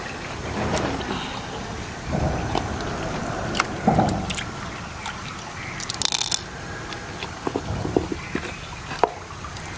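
Wet handling of a large opened freshwater clam: squelches and drips from the flesh and shell, with light clicks and taps, including a quick cluster of sharp clicks about six seconds in.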